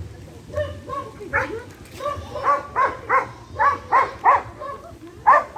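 Husky barking in a quick series of short, high barks, about two to three a second, starting a little over a second in.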